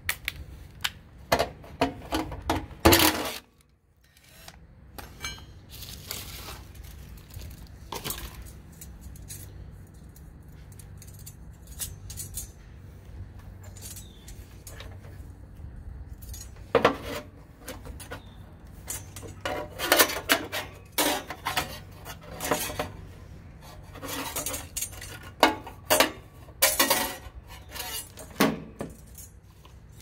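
Irregular metallic clinks, taps and rattles of tools and small parts being handled while wiring a replacement fan motor into an air conditioner condenser's contactor. The clinks come in clusters, with a brief silent gap about four seconds in.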